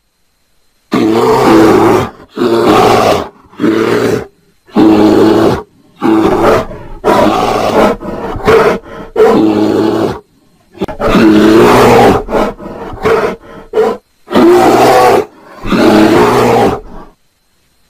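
Bear roaring and growling in about a dozen short bursts, each around a second long, with brief silent gaps between them.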